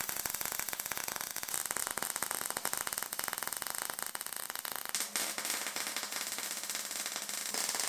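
Electric arc welding on 20×20 mm square steel tube: the arc's steady, dense crackle as joints of the frame are welded, with a brief break about five seconds in.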